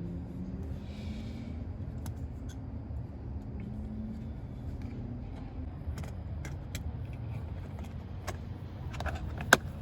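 Small plastic clicks and taps as an LED door-light housing is handled and pressed into a car door panel, ending in a sharp snap near the end as it seats. A steady low rumble runs underneath.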